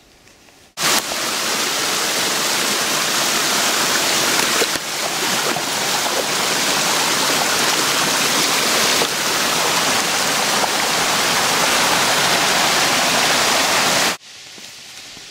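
Mountain torrent, the Tordino, rushing over rocks close by while running high with a lot of water: a loud, steady rush that starts suddenly about a second in and cuts off shortly before the end.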